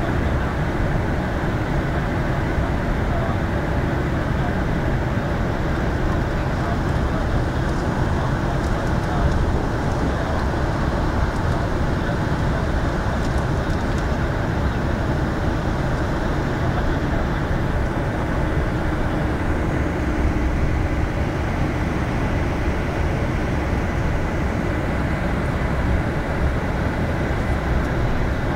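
Steady low rumble inside a bus cruising on a motorway: engine hum and tyre noise, unchanging throughout.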